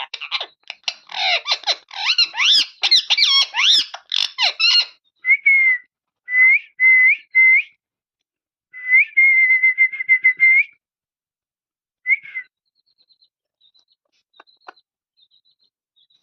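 Pet parrot chattering rapidly with quick, gliding calls, then giving a run of short whistles that flick up at the end. About nine seconds in comes a longer warbling whistle, then one more short whistle, and only faint small clicks near the end.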